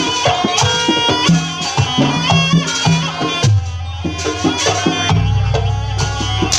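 Jaranan gamelan music: a shrill reed-pipe melody over hand-drum strokes and gongs. A deep gong note comes in about three and a half seconds in and a lower one about five seconds in, both ringing on.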